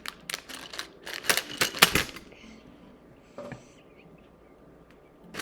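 A quick run of sharp plastic clicks and taps from small objects being handled, bunched in the first two seconds, with a couple of fainter taps later.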